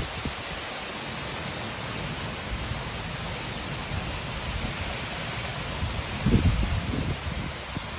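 Heavy rain pouring steadily in a windy thunderstorm. About six seconds in, a gust of wind buffets the microphone in a short burst of low rumbling.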